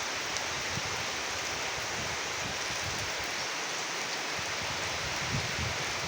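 Steady rain falling, an even hiss that neither swells nor fades.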